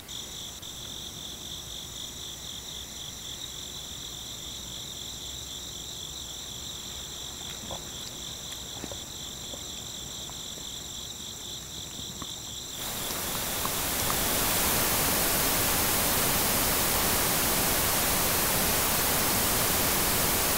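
Crickets chirping in a steady pulsing trill, with a few faint clicks. About thirteen seconds in, a loud hiss of static swells up over a second or two and then holds steady, drowning the crickets.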